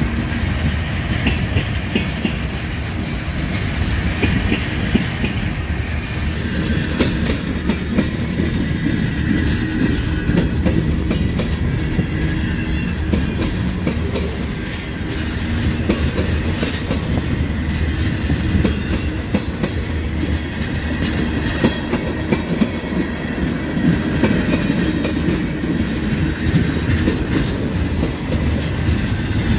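Freight train cars rolling past: a steady rumble of steel wheels on rail with clickety-clack and scattered clicks and clanks.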